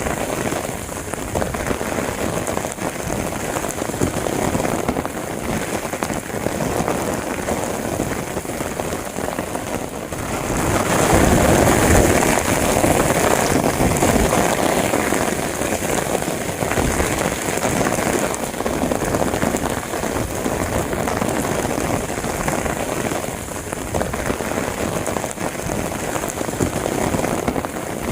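Steady rain falling, a dense even hiss of drops. It grows heavier about eleven seconds in, then eases back a few seconds later.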